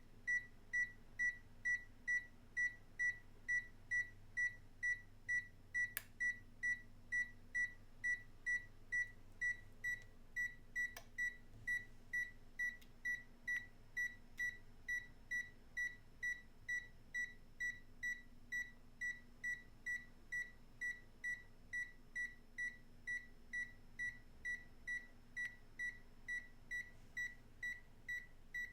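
ZOYI ZT-R02 thermal imaging multimeter beeping: one short high beep at a single pitch, repeated steadily about twice a second.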